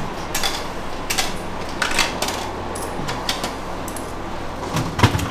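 Vending machine working through a purchase: a string of sharp clicks and clatters from its mechanism, then a heavier thud about five seconds in as the packaged beef tongue drops into the delivery bay. A faint steady machine hum runs underneath.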